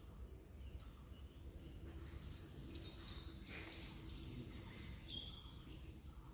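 Small birds chirping outdoors, with a few quick high whistles that sweep up and down in the middle, over a steady low background rumble.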